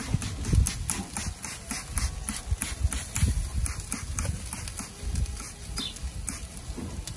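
Trigger spray bottle spritzing a liquid over smoking pork ribs: a quick run of short sprays, about three a second.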